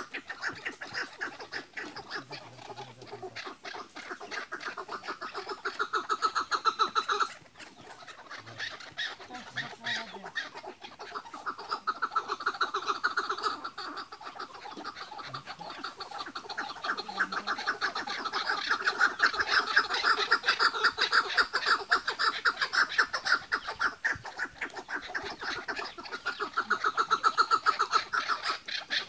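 Several caged chukar partridges calling against one another in rival males' calling contest, a fast, continuous run of repeated notes (the hıngırma call) that swells and fades in waves, dipping briefly about seven seconds in.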